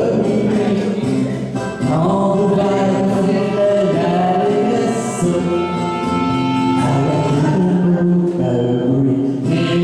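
Karaoke duet: a man and a woman singing a French song into handheld microphones over a recorded backing track.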